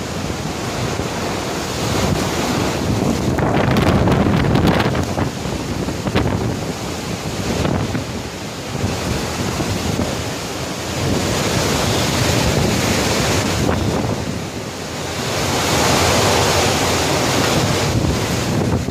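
Hurricane-force wind blowing in gusts with heavy wind-driven rain, buffeting the microphone. It swells in strong gusts about a quarter of the way in, again past the middle, and once more near the end.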